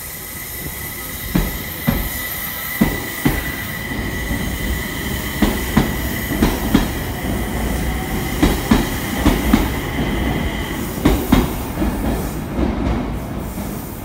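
An E721 series 1000 electric train pulling out of the station, its wheels clacking over rail joints in pairs that come quicker as it gathers speed. A steady high whine runs under the clacks and fades out near the end.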